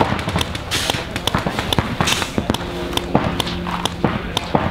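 Paintball markers firing: rapid, irregular strings of sharp pops from several guns at once.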